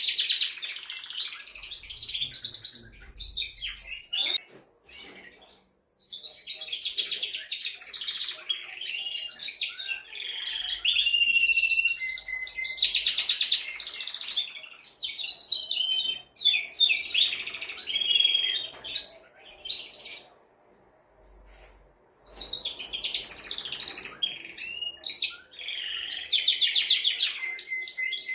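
Male domestic canary singing: long phrases of rapid trills and whistled notes, broken twice by short pauses.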